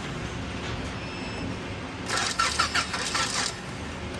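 Clark C30 forklift's starting circuit as the key is turned: a rapid rattling, clicking burst about two seconds in, lasting about a second and a half, over a low steady hum. The engine does not crank. It is a bad-sounding sign of the no-crank fault, which was later traced to the power wire to the starter solenoid.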